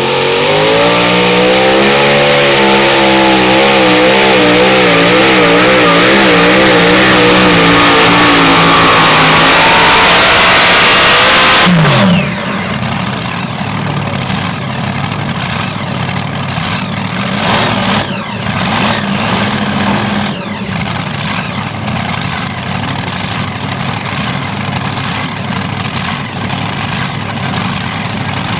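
Multi-engine modified pulling tractor at full power pulling the sled for about twelve seconds, its engine note wavering up and down. It then drops suddenly off power at the end of the pull and settles to a lower running sound with a few blips.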